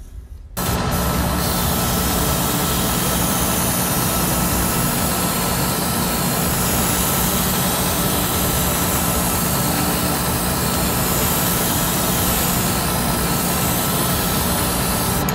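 Airbrush spraying primer surfacer: a loud, steady hiss of air over the hum of a hobby spray booth's exhaust fan, starting suddenly about half a second in.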